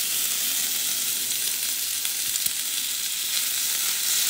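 Chicken meatballs sizzling in hot oil in a small cast iron skillet: a steady frying hiss, with a few faint clicks.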